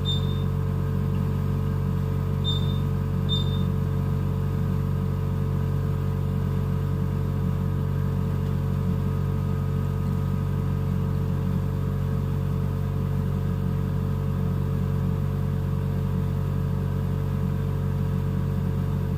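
NICU ventilator running with a steady mechanical hum. Three short high beeps sound within the first four seconds.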